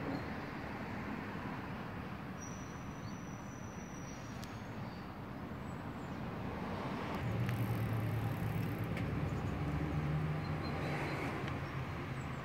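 Steady outdoor traffic rumble. A vehicle engine hum grows louder from about seven seconds in and eases off near the end.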